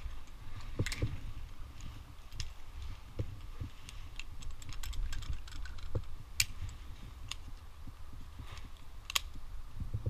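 Metal climbing hardware being handled: carabiners and a rope device clicking and clinking against each other at irregular moments, over a steady low rumble.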